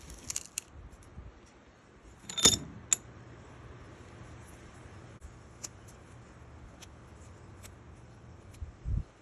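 Small metal parts clinking and jingling, with one loud metallic clank that rings briefly about two and a half seconds in. Scattered light ticks follow, and there is a dull thump near the end.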